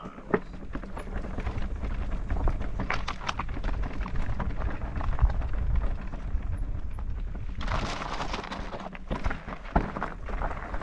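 Electric mountain bike going over rough, stony ground: a steady low wind rumble on the microphone with many short rattles and knocks, and a stretch of louder hissing grit-and-gravel noise about eight seconds in.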